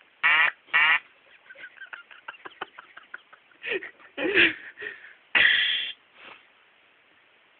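Short sound-effect samples from an electronic keyboard: three quick buzzy calls, then a run of small clicks, a few gliding sounds, and one longer, louder call about five and a half seconds in.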